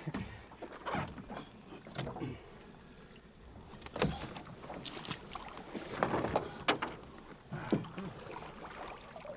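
Irregular knocks and bumps against a small boat's hull as people shift about in it and one climbs over the side into shallow water: a handful of sharp knocks, roughly a second apart.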